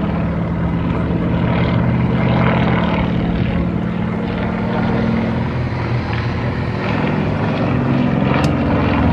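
A small aerobatic plane's engine droning overhead as it climbs and turns, trailing smoke. The pitch shifts a little partway through.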